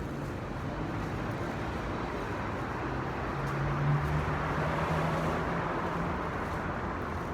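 Steady road-traffic noise, a rushing hiss with a low engine hum that swells a few seconds in and then eases off.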